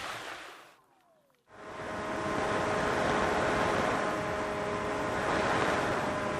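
FPV racing drone's motors whining steadily under heavy wind noise on the microphone. The sound drops out briefly about a second in, then comes back steady.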